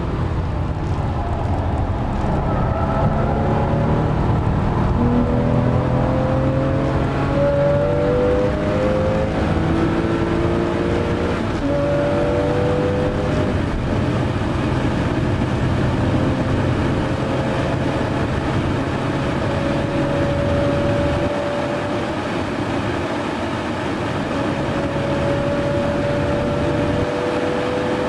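Porsche 997 Carrera S's 3.8-litre flat-six heard from inside the cabin under hard driving, its note climbing in steps through upshifts in the first half. It then holds at high revs and drops off briefly about two-thirds through and again near the end as the driver lifts.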